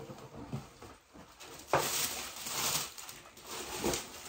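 A cardboard shoebox being opened and the crinkly packing paper inside rustled and folded back. The rustling starts sharply a little under two seconds in, with another sharp rustle near the end.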